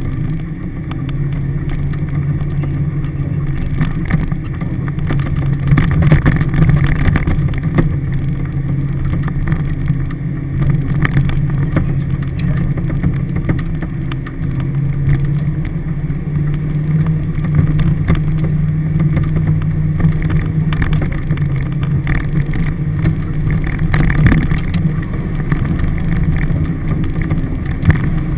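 Toyota Hilux 4WD engine running steadily at low speed, heard from inside the cabin, with frequent knocks and rattles as the vehicle crawls over a rough dirt track.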